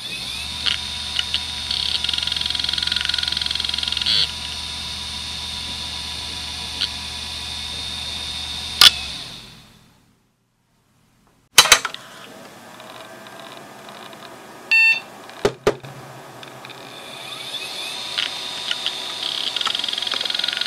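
Western Digital WDAL2540 540 MB 2.5-inch IDE hard drive, 4500 rpm, running up to speed with a steady high whine and a few light clicks. A sharp click comes about nine seconds in, then the spin-down fades to silence. After a pause there are a few sharp clicks and a short beep, and the drive spins up again near the end.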